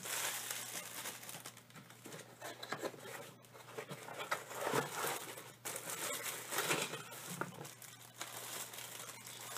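Bubble wrap and a plastic bag crinkling irregularly as hands handle them and pull them out of a cardboard mailing box.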